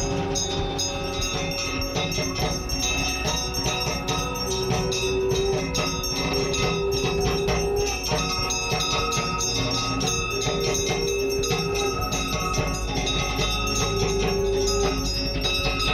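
Festive music of drums and ringing bells: rapid, steady strokes throughout, with a few held notes that come and go.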